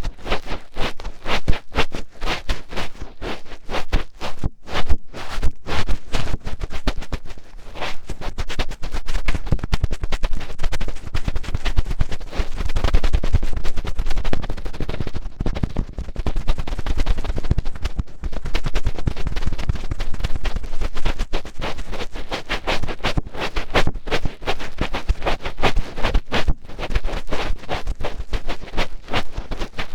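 Close-miked fingertips scratching and rubbing deep in an ear for ear-cleaning ASMR: a continuous dense run of quick scratching strokes with a muffled low rumble.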